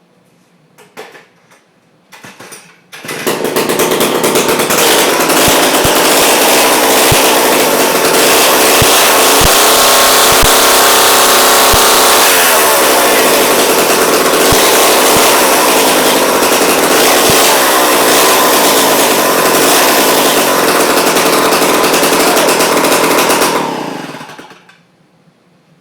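Homelite C-51 two-stroke chainsaw starting from cold after sitting unused. It catches about three seconds in and runs very loud for about twenty seconds, its pitch dropping and climbing back around the middle, then shuts off.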